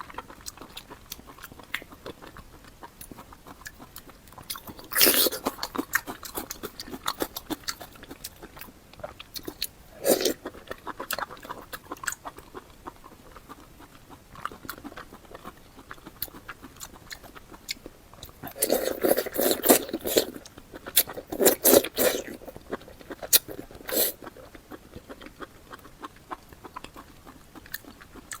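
Close-miked eating sounds: a person chewing and biting food, with a steady run of wet mouth clicks. Louder spells of biting and chewing come about five seconds in, at ten seconds, and for a few seconds near the twenty-second mark.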